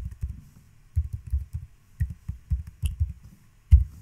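Computer keyboard keystrokes: a password being typed in quick uneven clusters of dull key knocks, with one louder keystroke near the end.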